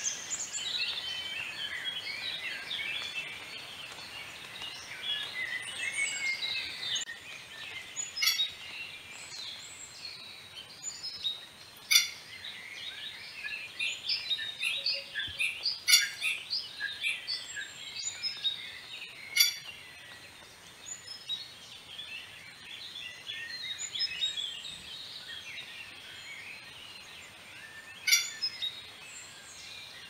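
Dense chorus of many birds chirping and twittering without a break, with a few sharp, loud calls standing out around the middle of the stretch and once near the end.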